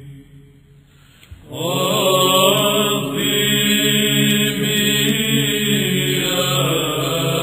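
Byzantine choir chanting an Arabic Nativity hymn. After a pause of about a second and a half, the voices come back in together, with the melody moving over a steady, low held drone (the ison).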